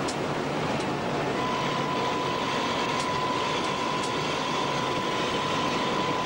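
Steady running noise of the TEP80 diesel passenger locomotive at high speed, heard from inside the cab: an even rush of wind, wheels and engine. A steady high beep joins about a second in and holds on.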